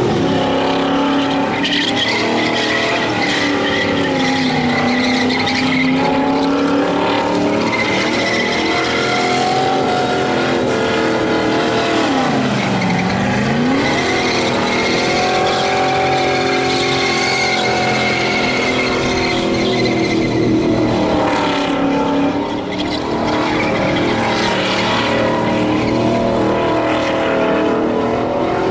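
Holden Commodore V8 held at high revs in a burnout, its rear tyres spinning and squealing. About halfway through the revs dip sharply and climb straight back up.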